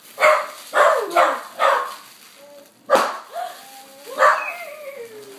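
Small dog barking in quick yips, four within about two seconds, then a sharp pop about three seconds in, and a longer whining yelp that falls in pitch near the end.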